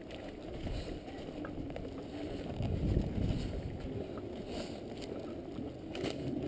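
Rustling and wind buffeting on a body-worn microphone, with a few faint clicks near the end.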